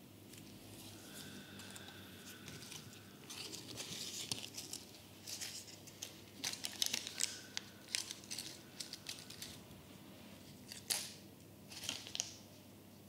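Crinkling and rustling of something crinkly being handled close to the microphone, in uneven runs of small crackles and clicks that are loudest in the middle and near the end.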